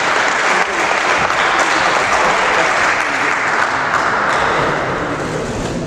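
Spectators applauding steadily, dying away near the end.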